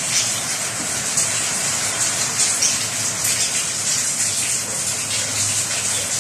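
Heavy rain pouring down steadily, mixed with a stream of milk being poured into a hot pan of melted butter and tuna, where it bubbles.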